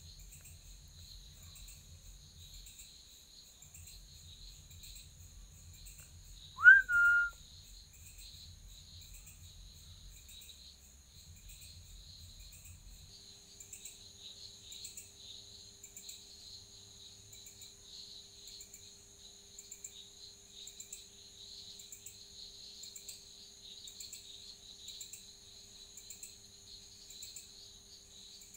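Insects chirping in a steady, high-pitched, pulsing chorus. About seven seconds in comes one short, loud whistle-like call that sweeps up and then holds briefly. A faint low hum sets in about halfway through.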